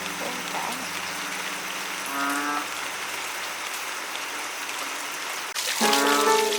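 Steady heavy rain falling, with a short pitched call about two seconds in. Music comes in near the end.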